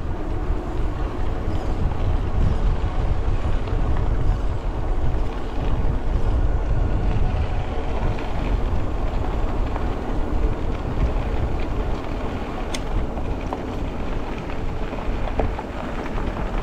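Steady wind rush on the microphone mixed with the rumble of a fat-tyre electric bike rolling along the trail at speed.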